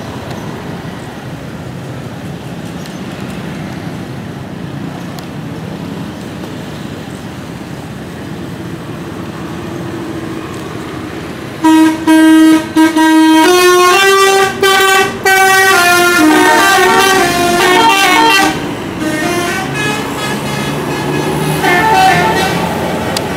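Bus 'telolet' musical horn playing a quick tune of stepped notes, loud, starting about halfway through after steady road traffic noise; fainter horn notes follow near the end.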